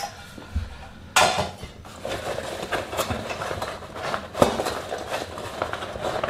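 Handling noise as a metal camping cup is worked into a fabric pouch: fabric rustling and scraping, with a few light metal knocks.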